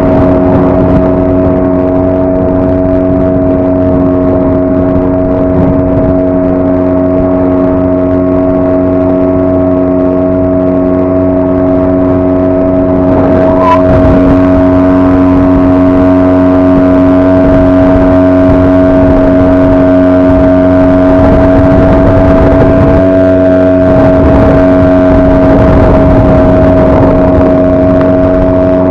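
A 5 hp outboard motor runs at a steady throttle, pushing an inflatable boat through choppy water. About halfway through there is a short knock, after which the hiss of water and wind grows louder.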